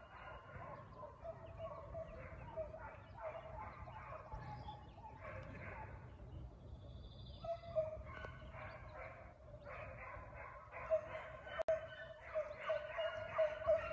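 A pack of foxhounds baying in chorus at a distance, many voices overlapping as they run a chase, growing louder near the end.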